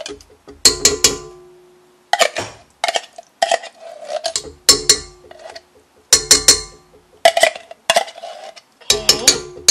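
A tin can of pumpkin puree knocked repeatedly against a stainless steel stand-mixer bowl to shake the puree out: sharp metallic clanks in clusters about once a second, each leaving the bowl briefly ringing.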